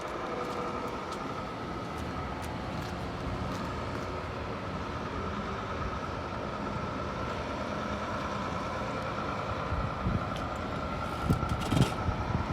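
A vehicle running steadily, with a thin steady whine over a low drone and a few low thumps near the end.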